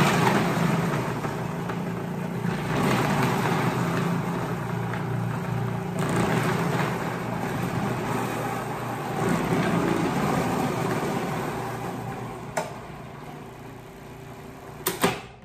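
Electric food processor running, its shredding disc grating soft Havarti cheese as pieces are pushed down the feed tube. A steady motor hum runs under a grinding noise that swells as cheese is fed. The sound eases off toward the end, with sharp clicks near the end.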